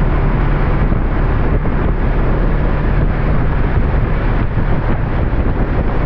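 Wind buffeting the microphone on a BMW GS boxer-twin motorcycle cruising at steady speed, with the engine's low, even drone underneath.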